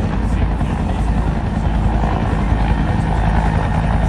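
Bell 212 helicopter hovering: its two-bladed main rotor makes a rapid, even chop over a steady heavy rumble and turbine noise.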